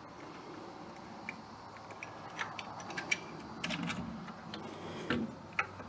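Scattered light metallic clicks and taps of a connecting rod cap, bearing shell and shims being fitted by hand back onto the crankshaft of an old John Deere Model E hit-and-miss engine. The clicks are sparse at first and come more often in the second half.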